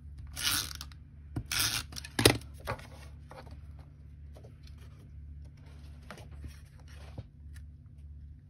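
Tombow Mono tape adhesive runner drawn across paper in two short strokes, then a sharp click a little after two seconds in. After that come faint scattered paper-handling sounds as a patterned paper panel is laid down and pressed onto a card base.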